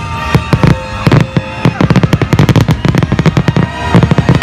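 Aerial fireworks going off in a rapid volley of sharp bangs and crackles, several a second, densest from about a second in until near the end. Music plays underneath.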